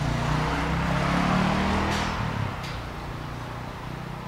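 McLaren MP4-12C Spider's twin-turbo V8 held at raised revs, then falling back to a steady idle about two and a half seconds in, with two short cracks around the drop.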